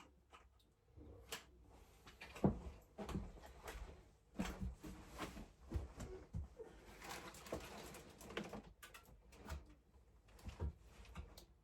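Irregular knocks, clicks and rustling in a small room, the loudest knock about two and a half seconds in, with a longer rustle near the middle.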